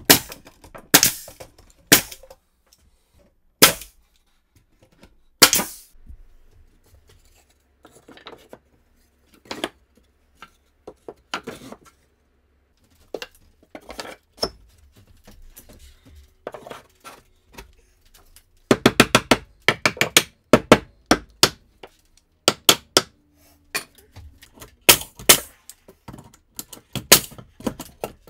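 Cordless nail gun firing nails into pine shelf boards: sharp single shots at irregular intervals, a quick run of shots about two-thirds of the way through, and a few more pairs near the end.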